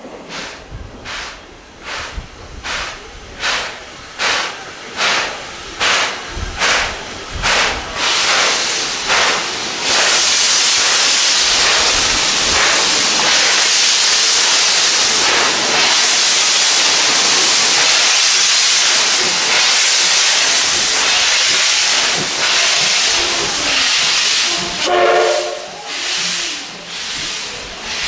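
JNR Class C11 steam tank locomotive pulling away. Its exhaust chuffs come about twice a second, then a loud steady hiss of steam lasts about fourteen seconds as the engine passes close by. A brief pitched tone sounds near the end.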